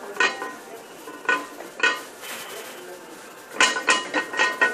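Metal gym weights clanking with a short ring: a few separate clinks, then a quick run of them near the end.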